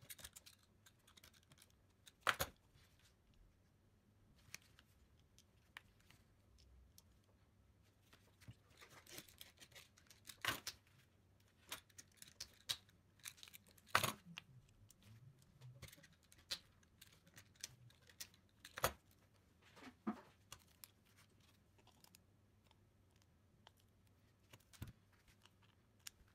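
Hard plastic RC-car kit parts and small metal pieces being handled and fitted together by hand: scattered light clicks and taps, with a few sharper clacks.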